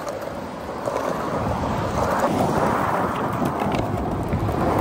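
Steady rushing roadside noise of wind on the microphone and freeway traffic, growing a little louder after the first second.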